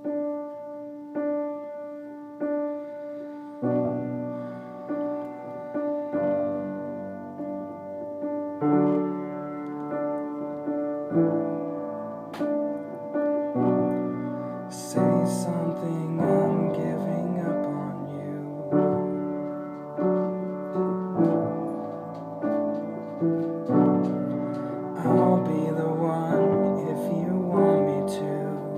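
Piano playing a slow ballad introduction. Spaced single chords give way to fuller chords with bass notes about four seconds in, and the playing grows denser and brighter around the middle.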